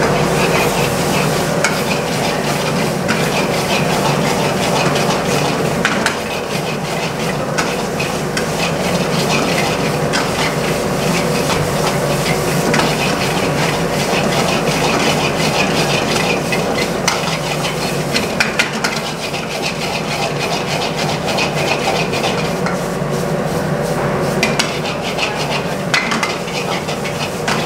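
Metal ladle stirring and tossing meat as it sizzles and fries in a steel pan over a gas flame, with frequent clinks and scrapes of the ladle against the pan over a steady low roar.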